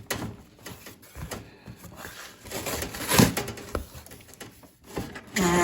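Rustling and clicking of parts and packaging being handled on a workbench, with a louder scraping rush about three seconds in. Near the end comes a short, low pitched groan that holds steady, then dips.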